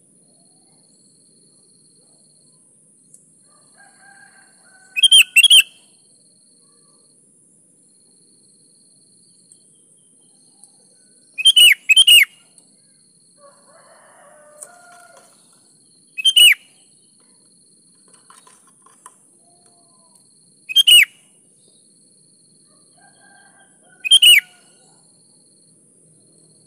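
Sooty-headed bulbul (kutilang) calling: five loud, short bursts of quick falling notes a few seconds apart, with softer chirps in between. A faint steady high hiss runs underneath.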